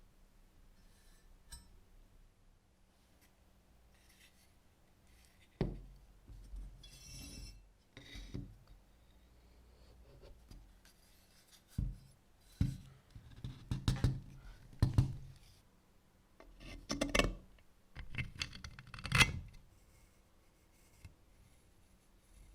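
Workshop hand work on the cleaver. It is quiet at first, then from about five seconds in come irregular knocks, low thumps and short scraping and rubbing strokes of tools and the workpiece against each other.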